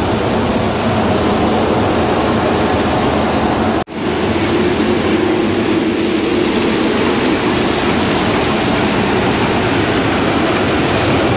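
Satake rice husking machine running with a loud, steady rushing mechanical noise, cut by a brief break about four seconds in. Its abnormal tan-tan knocking is traced to an old pulley.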